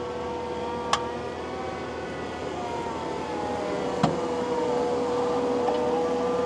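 Takeuchi TL12 V2 track loader running a high-flow Conetex grinding attachment working deep into the soil: a steady machine drone with one held tone and shifting engine pitch. Two sharp knocks come through, about a second in and about four seconds in.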